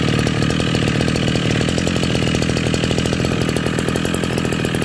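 Shindaiwa S35F brush cutter's 35cc two-stroke engine running steadily just after starting.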